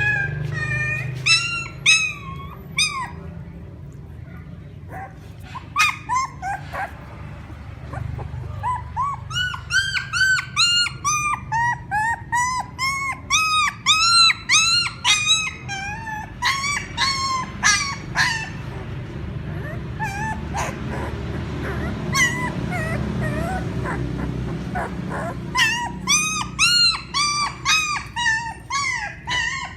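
Puppy crying: runs of short, high-pitched whimpers, each rising and falling in pitch, about two a second, thinning out for a few seconds near the start and again past the middle.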